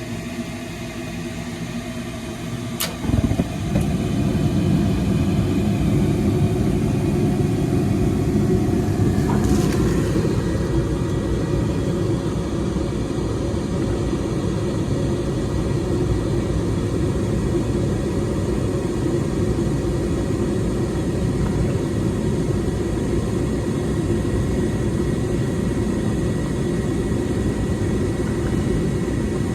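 Gas furnace running. A click about three seconds in, then the blower motor comes on and a loud, steady rush of air and rumble follows.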